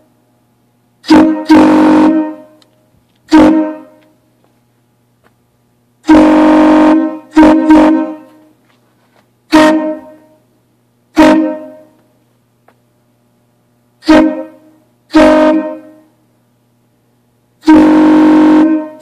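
Homemade ABS-pipe air horns, fed by an air compressor at about 120 psi, blown in about ten loud blasts, mostly short, two held for about a second. Each blast is several steady tones at once from the horns' different pipe lengths.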